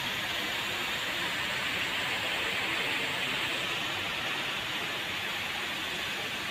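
Steady, even hissing noise with no rhythm or strokes.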